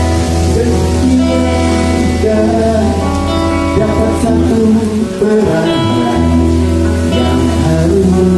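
Amplified live band music: guitar and a steady bass line, with a singer coming in partway through.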